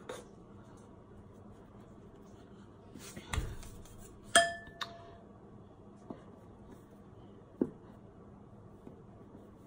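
Large kitchen knife cutting dough and knocking on a wooden cutting board: a dull thump a little over three seconds in, then a sharp ringing clink of the steel blade, followed by a few light taps.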